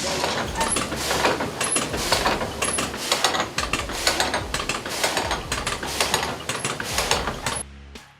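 Old sawmill machinery running, a dense clatter of rapid, irregular knocks and rattles that cuts off shortly before the end.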